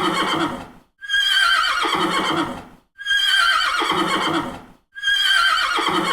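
Horse whinnying: the same neigh repeats about every two seconds, three times in full, after the tail of an earlier one. Each call starts high and falls away.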